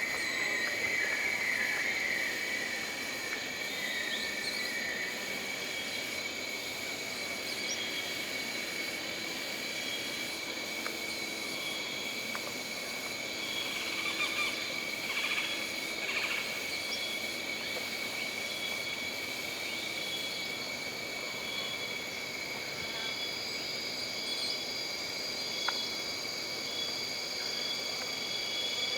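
Jungle ambience: insects trill steadily at several high pitches. A short chirp pulses about every second and a half, and a few brief calls come in near the start and again midway.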